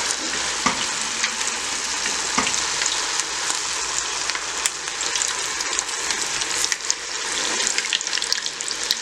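Battered fish pieces deep-frying in hot oil in an aluminium pot, a steady loud sizzle throughout, with a few faint sharp clicks. The cook takes this sizzle as the sign the fish will turn out well.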